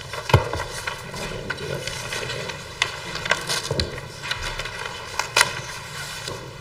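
Paper handling: pages of a thick ring binder being turned and shuffled, with scattered rustles and taps and a sharp knock about a third of a second in.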